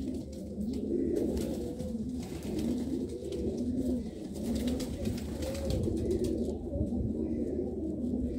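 Domestic pigeons cooing, several low coos that rise and fall and overlap one another.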